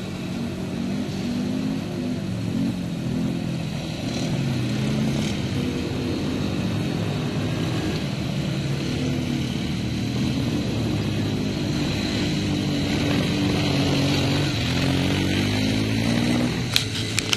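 Several ATV (quad bike) engines racing on a dirt track, overlapping and revving up and down as the riders work the throttle through the turns. A few sharp clicks come near the end.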